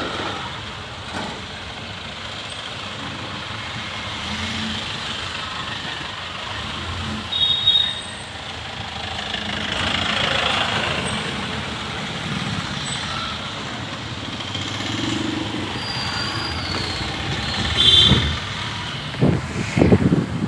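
Steady engine and road noise from inside a moving vehicle driving along a road, with brief high tones about seven seconds in and again near the end.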